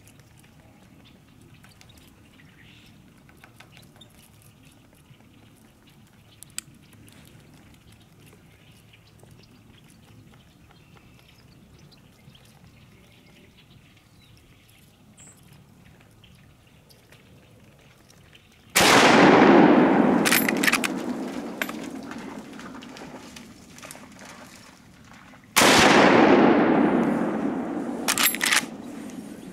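Two rifle shots about seven seconds apart, each echoing away over several seconds, from a scoped lever-action rifle fired at a sika stag. About a second after each shot come short sharp clicks, as of the lever being worked to chamber the next round. Before the shots there is only faint, quiet outdoor background.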